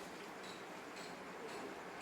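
Faint steady background hiss of room noise, with three soft light ticks about half a second apart.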